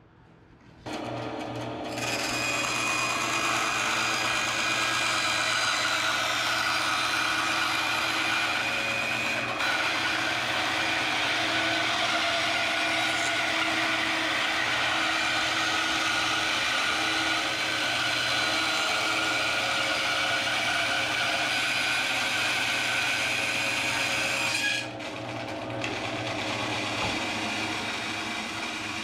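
Rikon 10-3061 10-inch bandsaw switched on about a second in, then its 1/2 inch resaw blade ripping a thin strip from a reclaimed pine 2x4 for over twenty seconds. Near the end the blade comes through the cut and the saw runs on freely, quieter.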